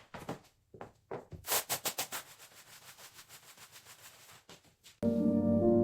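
A quick run of sharp clicks or taps, fading into faint regular ticks about four a second, then soft music with sustained ringing tones starts near the end.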